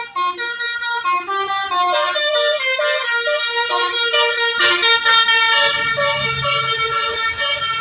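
Telolet bus horn playing a fast stepping melody of several horn notes. A short burst of hiss cuts in a little past halfway.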